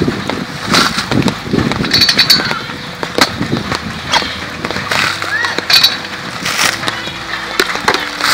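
A dry coconut being husked with a husking tool: repeated sharp cracks and knocks, with the fibrous husk scraping and tearing in between.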